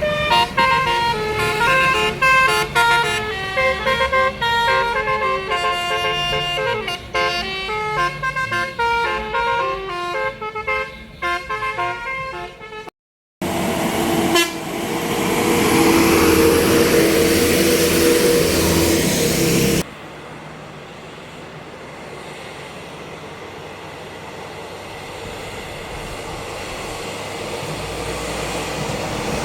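Tour bus 'telolet' multi-tone horn playing a quick tune of stepped notes for about thirteen seconds. After a short gap, a loud horn chord is held for about six seconds over a rushing noise, then gives way to a quieter, steady engine rumble that grows louder toward the end.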